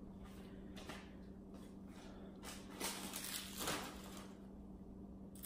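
Faint handling sounds of food and packaging on a table: a few soft rustles in the middle, over a steady low hum.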